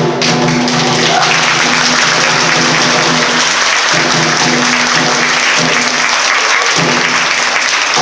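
Audience applauding over kagura music, whose steady low notes break off and come back several times.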